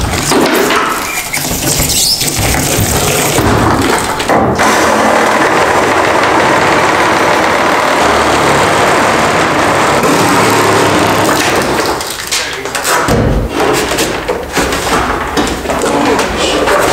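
A reciprocating saw cutting steadily for several seconds, stopping about twelve seconds in. It is followed by irregular knocks and scrapes.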